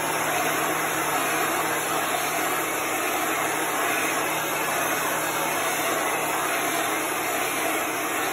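Handheld heat gun blowing hot air over a freshly painted wooden board to dry the paint: a steady rush of air over a low motor hum.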